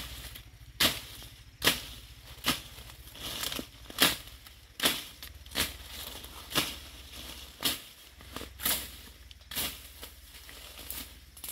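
A machete chopping through undergrowth stems: one sharp cut roughly every second, with leaves rustling between the cuts.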